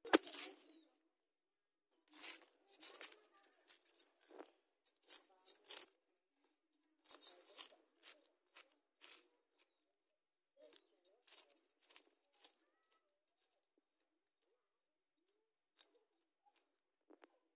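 A fish being scaled on a boti blade: short rasping scrapes as the scales are stripped off, in quick runs with pauses between them. The strokes thin out to a few isolated scrapes near the end. A short thump comes at the very start.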